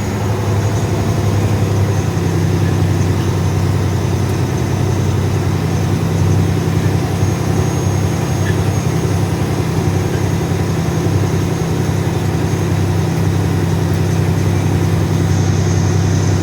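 Heavy farm vehicle's engine running steadily at low speed while working a beet field, a constant low drone with no change in pitch.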